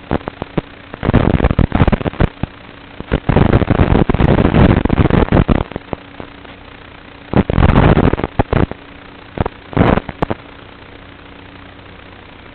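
A 3-inch GEPRC FPV quadcopter in flight, heard through its onboard recording: a steady low hum broken by loud, harsh bursts of noise, the longest about a second in, from three to six seconds in and around eight seconds in, with short sharp cracks in between.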